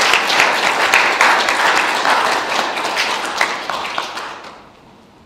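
Small audience applauding with dense clapping that thins and dies away near the end.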